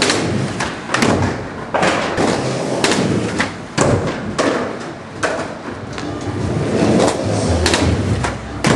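Skateboards on plywood ramps: wheels rolling, with repeated irregular thuds and clacks as boards hit and land on the wood.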